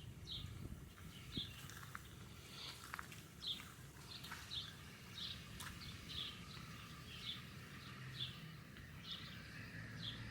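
A bird calling with short, high chirps about once a second, faint, over a low steady rumble of wind.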